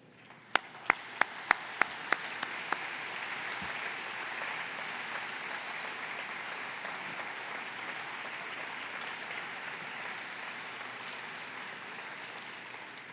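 Audience applauding: a few loud, close single claps about three a second at the start, joined by a swelling round of applause from the whole room that holds steady and eases slightly toward the end.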